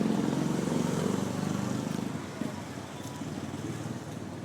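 A Toyota Sprinter Trueno TE27's engine running, its note fading steadily as the car moves away.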